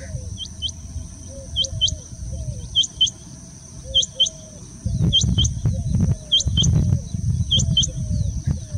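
Male rain quail giving its breeding call: a sharp double note, repeated seven times about every 1.2 seconds. A low rumble of background noise grows louder about five seconds in.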